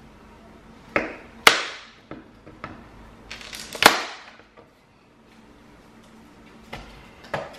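Snap clips of a Segway Ninebot ES2 battery's plastic case clicking loose as screwdrivers pry the seam open: a string of sharp clicks, the loudest about one and a half seconds in and again near four seconds, with smaller ticks between. Each click is a clip letting go as the case opens.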